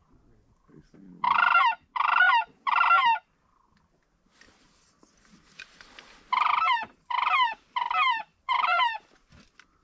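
Sandhill crane calls: seven loud rolling, rattling croaks, three in quick succession and then, after a pause of about three seconds, four more.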